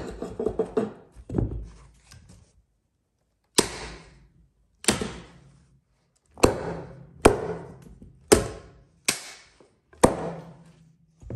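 A brief rapid clatter, then seven sharp knocks starting a few seconds in, irregularly spaced about a second apart, each with a short ring-out.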